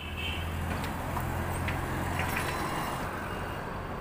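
Low, steady hum of a motor vehicle engine running in the street, easing off a little near the end, with a few faint clicks over it.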